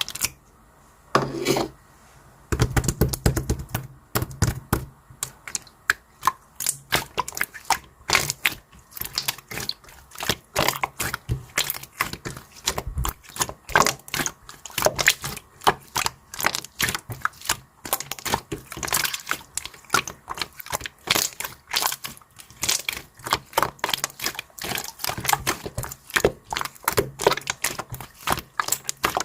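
Rapid, irregular clicking and tapping, several sharp strokes a second, after two short knocks in the first two seconds.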